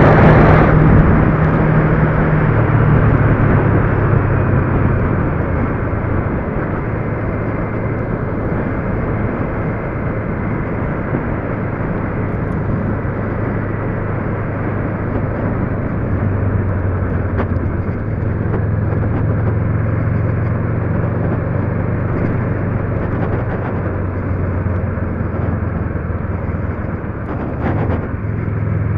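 Motor vehicle driving along a road: a steady low engine hum over tyre and road noise. The engine note drops a few seconds in and shifts again about halfway through.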